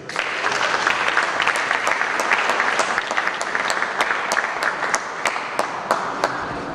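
Audience applauding, starting all at once, with single sharp claps standing out from the rest. It eases off a little near the end.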